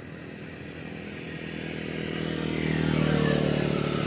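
A motorcycle engine running on the road, growing louder over the first three seconds as it approaches, then holding a steady hum.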